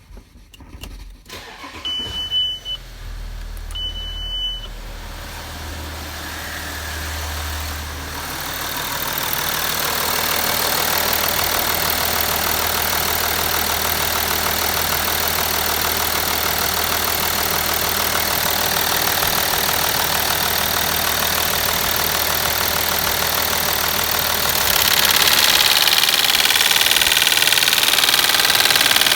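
Audi A6 C6 2.7 TDI V6 diesel engine started after two short beeps, then idling steadily. The engine has a knock that the owner puts down to the crankshaft pulley. The running sound gets louder near the end.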